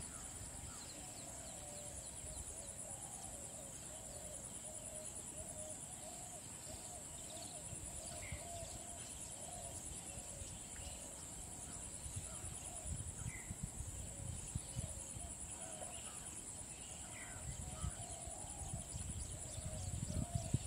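Outdoor nature ambience: a steady high-pitched insect drone, a continuous warbling chorus lower down, and a few short bird chirps, with low rumbles of wind on the microphone now and then.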